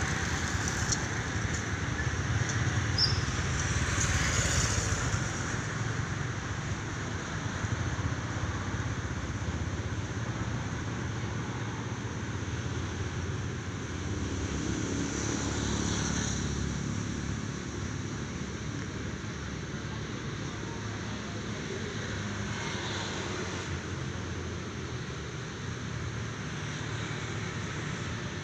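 Street traffic on a wet road: a steady hum and tyre noise from passing vehicles, loudest in the first few seconds and swelling again as more vehicles go by about halfway through and later.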